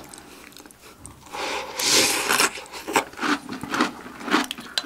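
Crunchy chocolate cereal in milk being chewed, with a dense burst of crunching about two seconds in, then a few short clicks and scrapes of spoons against glass bowls.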